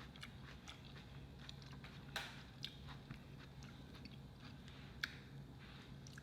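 Close-miked chewing of seafood boil: soft, wet mouth clicks and smacks, with a sharper click about two seconds in and again about five seconds in, over a faint steady hum.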